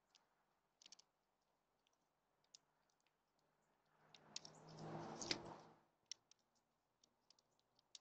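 Faint, scattered clicks and taps of small birds pecking and cracking seed at a tube feeder. Midway a soft rushing swell with a low hum rises and fades over about two seconds.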